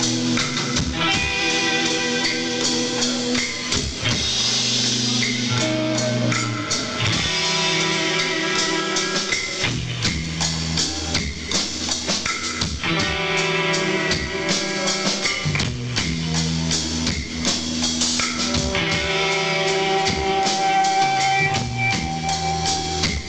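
Rock band playing live: sustained guitar chords that change every couple of seconds over a steady drum kit beat.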